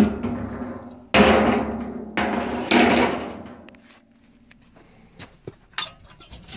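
Steel lid of a 55-gallon drum smoker being lifted off and set down, giving four loud metallic bangs and clatters in the first three seconds, each ringing out with a hollow drum resonance. A few light clicks follow near the end.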